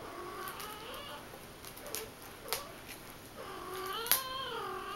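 A cat meowing: a short call at the start, then one long meow that rises and falls in pitch near the end. A few light clicks, one sharp click about four seconds in.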